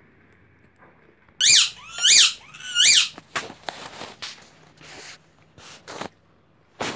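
Three loud, high-pitched squeaks in quick succession, each rising and falling in pitch, followed by a few seconds of scraping and knocking and one sharp knock near the end.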